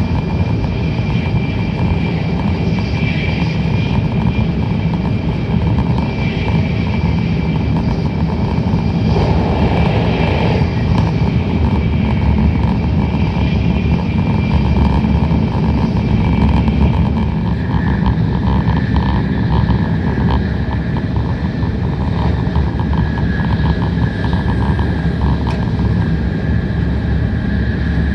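Tokaido Shinkansen train running at speed, heard inside the passenger car: a steady, loud rumble of wheels and air. A faint high whine sits on top and drops lower in pitch about two-thirds of the way through.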